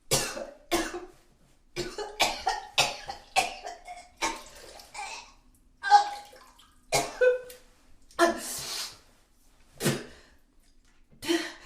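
A person retching and vomiting in a series of separate heaves, about a dozen in all, with gurgling and liquid splashing.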